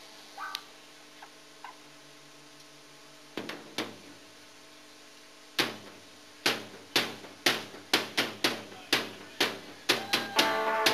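Steady hum from the amplifiers with a few stray knocks, then about halfway through an electric guitar starts striking short, sharp chords, about two a second and getting quicker, as the band starts a song.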